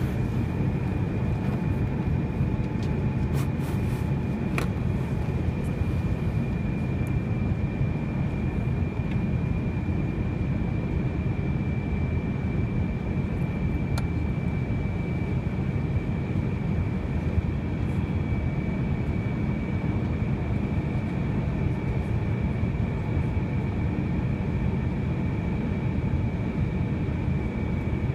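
Airbus A321 cabin noise during the descent to land: a steady low rumble of engines and airflow, with a steady high whine running through it.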